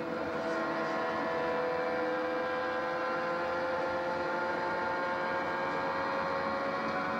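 Onboard sound of a 1993 Newman/Haas Lola-Ford turbocharged V8 IndyCar engine at high revs, held near full throttle around the oval, its pitch nearly steady with only a slight drift.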